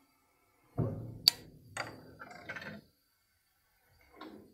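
Clicks and rattling from turning the height-adjustment handwheel and clamping lever of a dowel boring machine, with one sharp click a little over a second in and a shorter, fainter rattle near the end.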